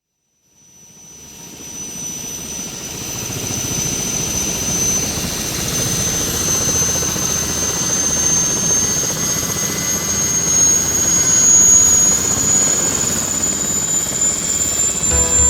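Aircraft engine sound effect fading in from silence and growing steadily louder, a rushing noise with a high whine that slowly rises in pitch. Music starts to come in near the end.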